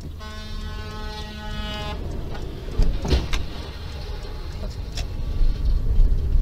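A car horn sounds one steady blast of about two seconds over engine and road rumble, then a few loud knocks about three seconds in, and another near five seconds.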